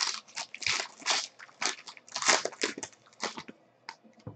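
Foil trading-card pack wrapper crinkling and tearing as hands rip it open, in quick irregular bursts for about three seconds, followed by a few faint clicks near the end.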